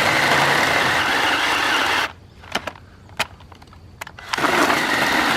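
JawSaw cordless electric chainsaw running with its chain cutting a branch slowly on a low battery. It stops about two seconds in, a few clicks follow, and it starts again just past four seconds.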